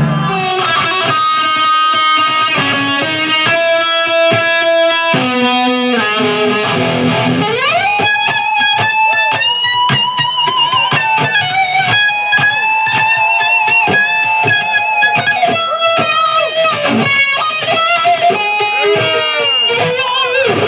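Live rock electric guitar solo on a black Les Paul-style guitar, over drums. A string of held notes leads to a long upward slide about eight seconds in, followed by sustained, bent notes with vibrato.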